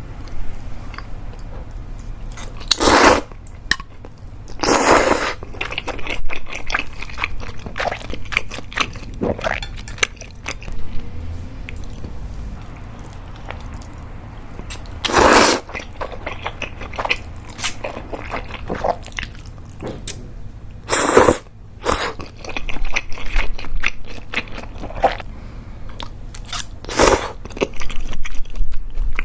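Close-miked eating of creamy mentaiko udon: wet chewing and mouth smacks, broken by about six louder half-second sucking pulls as the noodles are slurped.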